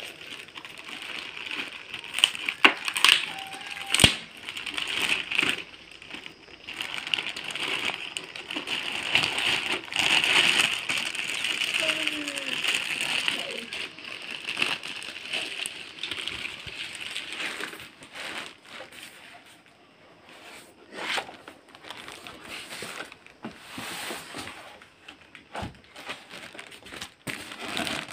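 Clear plastic bag crinkling and rustling as it is handled and pulled off a boxed subwoofer, with short clicks and a sharp knock about four seconds in.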